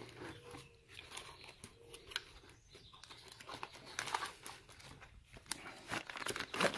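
Cardboard box and the plastic bag inside it rustling and crinkling as a folded flat-pack grill is slid out of its box, in irregular light crackles and clicks that grow busier near the end.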